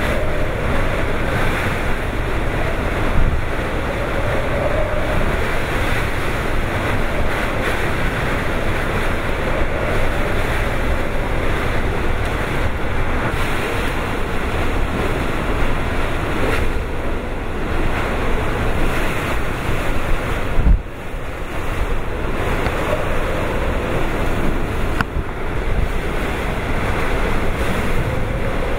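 Typhoon eyewall wind and heavy rain: a loud, steady rush with gusts buffeting the microphone, dipping briefly a little past two-thirds of the way through.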